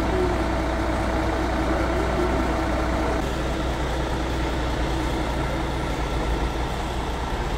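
Heavy truck's diesel engine idling steadily, a low continuous rumble.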